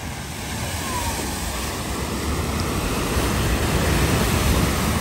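Range Rover driving through a flooded ford, its wheels throwing up a continuous rush of splashing water that grows louder as it comes past close by.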